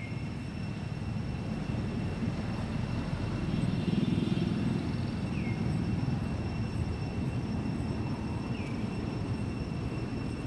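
Outdoor background rumble, steady and low, swelling about four seconds in and easing off again, with three short falling chirps, one at the start, one about five seconds in and one near the end.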